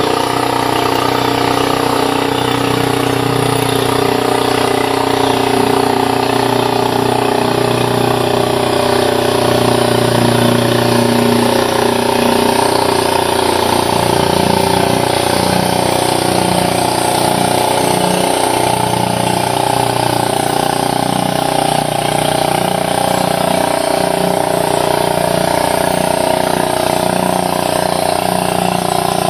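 An engine running steadily at constant loudness, its tone changing a little about halfway through.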